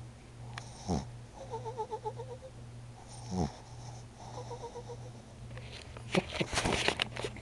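Pug snoring: fluttering, wavering snore breaths typical of the breed's short airway, with a quick falling snort about a second in and again around three and a half seconds, over a steady low hum. Near the end comes a run of sharp clicks and crackles, louder than the snoring.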